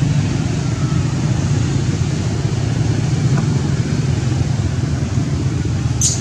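Steady low rumble of motor traffic, with a short high-pitched chirp about six seconds in.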